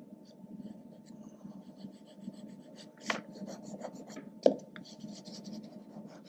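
White chalk scraping across toned paper in quick short strokes as highlights are laid in and rubbed with the fingers, with two sharp taps, the louder about a second and a half after the first.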